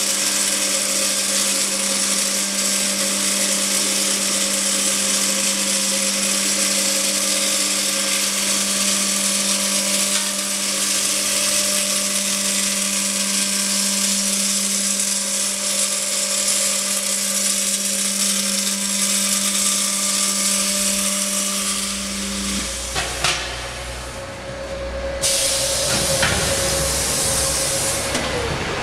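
Two torches of a double-head circumferential seam welder arc-welding the seam of a rotating steel LPG cylinder: a steady hiss and crackle over a steady hum. About 22 seconds in the hum stops, and a few clunks and a low rumble follow.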